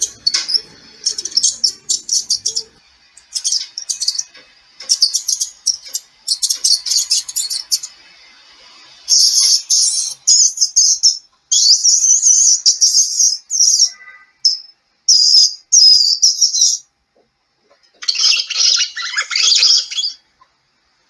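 Mouse squeaking: rapid runs of very high-pitched squeaks in repeated bursts with short pauses between them, with a denser, fuller burst near the end.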